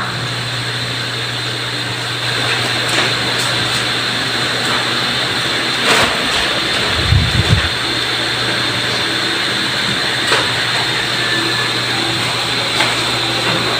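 Steady hiss and low hum of room noise, with a few faint brief rustles as a paper cover is pulled off a chart on a chalkboard, and a short low thump about seven seconds in.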